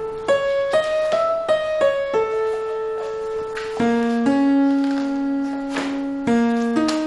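Background score music: a slow melody of held notes, led by piano.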